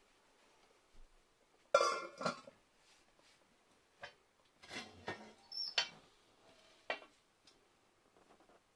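An enamel lid clattering onto an enamelled steel pot, the loudest knocks coming about two seconds in, followed by several lighter metal clanks and clicks as the cast-iron door of a brick stove is opened.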